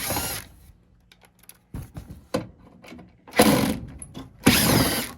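A screwdriver backing screws out of the ice maker's casing in three short runs, with light clicks between them.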